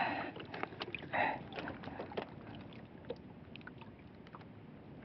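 Small clicks and rustling of fingers handling bait over a plastic bag in a small wooden outrigger boat, over a faint steady wash of water against the hull. A brief vocal sound comes about a second in.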